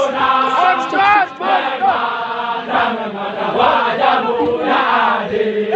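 A large group of Indonesian army soldiers chanting together in loud male voices.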